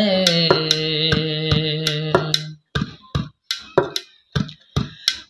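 A male voice holds a long sung note at the end of a ghazal line over sharp percussion strikes; the note ends about two and a half seconds in. After that only the percussion goes on, about three sharp strikes a second.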